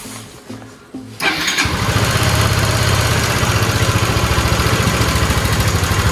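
Yamaha SMAX 155 scooter's single-cylinder four-stroke engine cranks for about a second, catches, and settles into a steady, evenly pulsing idle. This start is a check of a fresh spark plug, and the odd noise on starting is still there, so the plug was not its cause.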